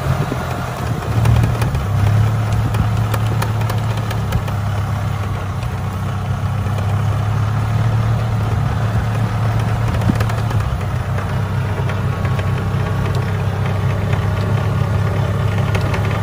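Engine of a small open vehicle running steadily as it drives across grass, a low even hum with light rattles from the ride.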